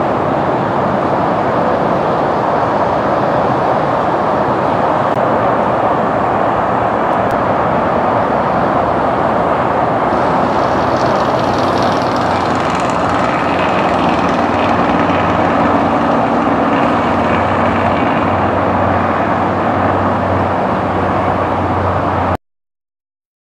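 Commercial jet airliner landing: a steady roar, joined from about ten seconds in by a whining engine tone and a low hum as the jet rolls along the runway. The sound cuts off abruptly near the end.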